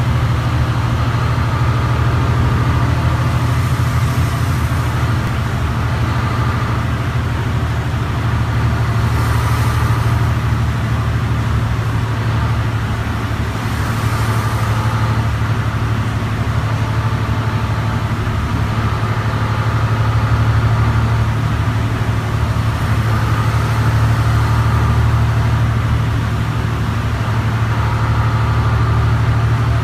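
Mercedes-Benz Citaro C2 city bus heard from inside the passenger saloon while it cruises: a steady low engine and drivetrain drone under road and tyre noise from the wet road, with a few brief hissing swells.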